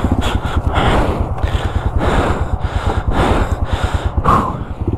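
Heavy, rhythmic breathing, about one breath a second, over the low, steady pulsing of a Yamaha TW200's single-cylinder four-stroke engine running at low revs.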